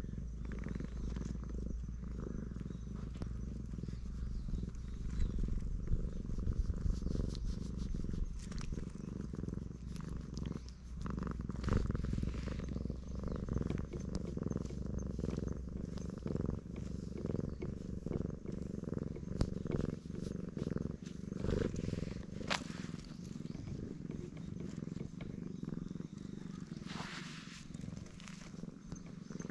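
Cat purring loudly and continuously as it is stroked on the head and chin, a sign that it is enjoying the petting. Scattered soft clicks and rustles run over the purr.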